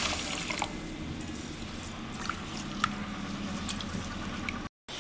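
Water poured into a steel bowl of roasted rice and moong dal, stopping about half a second in, then a hand swishing and rubbing the grains in the water to wash them, with small splashes and drips.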